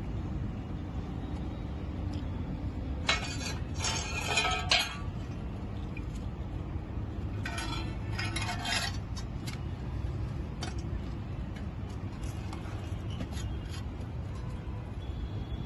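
Metal parts clinking and scraping in two short clusters, about three and eight seconds in, with a few lone ticks later, over a steady low rumble. This is the sound of a thermite-welding mould and its metal fittings being fitted to a rail joint.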